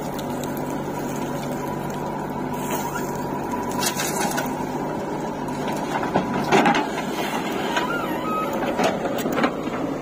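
JCB 3DX backhoe loader's diesel engine running steadily under load as the backhoe digs and swings soil over to a tractor trolley. Several knocks and clanks from the bucket and falling earth come in the second half, loudest about six and a half seconds in.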